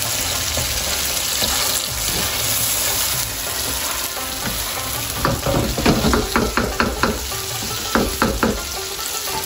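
Chicken pieces sizzling steadily as they fry in a wok while being stirred. About halfway through comes a run of quick knocks and scrapes from a wooden spatula working against the pan.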